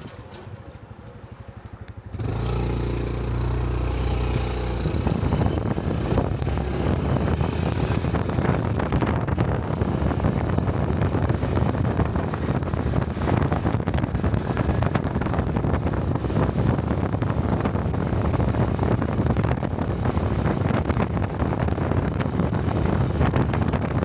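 Honda Cub 125 cc single-cylinder motorcycle engine, quiet at first, then louder about two seconds in as the bike gets going. It then runs steadily at riding speed, with wind rushing over the helmet-mounted microphone.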